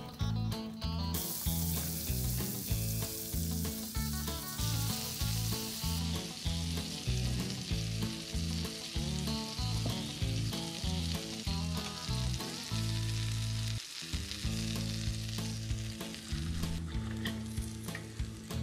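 Pancake batter sizzling in hot oil in a cast-iron skillet. The sizzle starts suddenly about a second in as the batter hits the pan, is loudest for the next few seconds, then settles to a steady fry. Low background music plays underneath.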